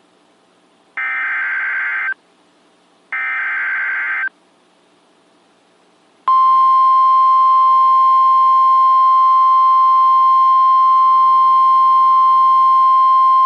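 NOAA Weather Radio alert: two short bursts of SAME header data tones, about a second each with a one-second gap, then after a pause the steady 1050 Hz warning alarm tone, which starts about six seconds in and holds. The sequence signals that a new warning is about to be read, here a severe thunderstorm warning.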